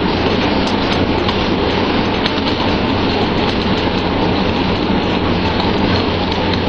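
Boat engine running steadily, a low drone under a loud, even rushing noise.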